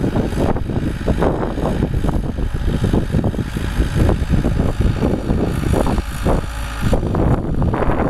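Ford 7610 tractor's four-cylinder diesel engine running steadily under load while pulling a three-furrow plough.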